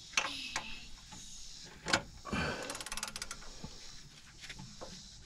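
Hand tools working a bolt under a car: a few sharp metal knocks and clinks, the loudest about two seconds in, then a quick run of rapid, evenly spaced clicks, while the motor mount bolts on the front subframe are being worked loose.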